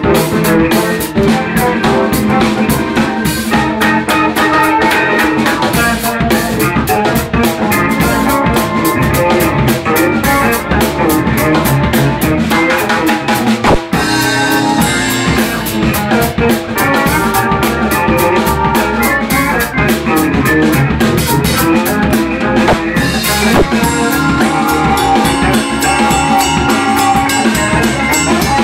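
Live funk-fusion band jamming: drum kit and bongos under a bass played through a Roland VB-99 modelling unit so it sounds like an electric guitar, with a second bass and keyboards. The music briefly drops out about halfway through.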